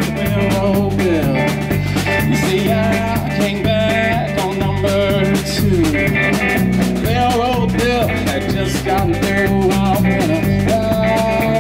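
A live blues trio plays an instrumental passage: an electric guitar line with bending notes over an electric bass and a drum kit keeping a steady beat.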